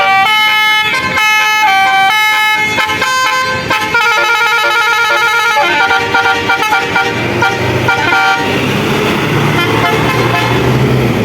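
A bus's Basuri musical air horn (telolet) playing a tune in held notes that step up and down in pitch. About eight seconds in it stops and gives way to engine and traffic noise.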